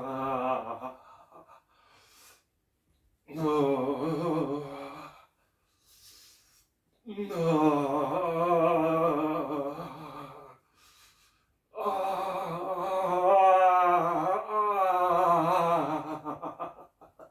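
A man's voice sounding long, open-mouthed 'aah' tones on the out-breath while he holds a bioenergetic back arch. The tones come in a series of held notes with breaths between, the longest about five seconds, which wavers in pitch toward its end.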